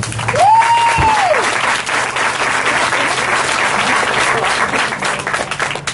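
An audience clapping steadily for several seconds after an a cappella song. Near the start, one high whoop rises and falls over the clapping.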